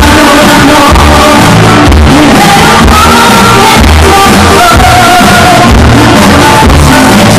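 Loud amplified music over a PA with a woman singing into a microphone, over a steady bass beat.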